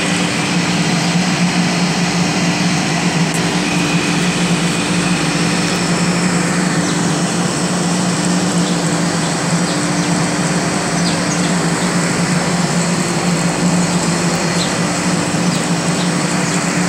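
A machine running steadily, a constant low hum over a broad rushing noise that does not change.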